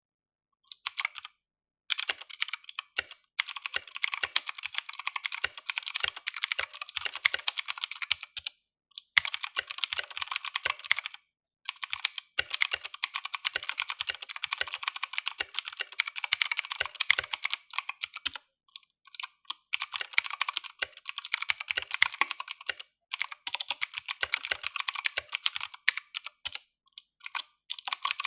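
Typing on a Koodo Cavalier mechanical keyboard with Outemu Blue clicky switches: fast runs of sharp keystroke clicks, starting about two seconds in, broken by a few brief pauses.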